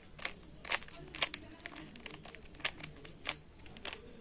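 Plastic 3x3 Rubik's cube having its faces turned in quick succession: a run of irregular sharp clicks and clacks as the layers snap round while a solving algorithm is worked through.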